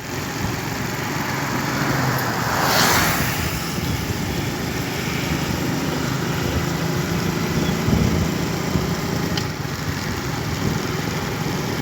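Steady road traffic noise, with a vehicle passing close by about three seconds in.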